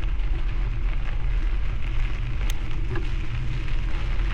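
Bicycle tyres rolling and crackling over a gravel road, with wind rumbling on the microphone, and a few brief ticks and rattles from the bike.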